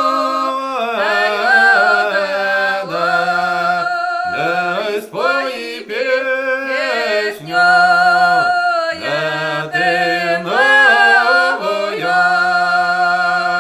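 Russian folk song sung by a woman and a man together, drawing out the final syllables in long, sliding held notes, ending on one long held chord.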